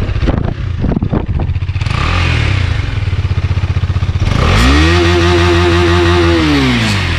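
KTM Duke 250's single-cylinder engine idling with a quick pulsing exhaust beat, then revved once about four seconds in, held up for a couple of seconds and dropping back toward idle near the end.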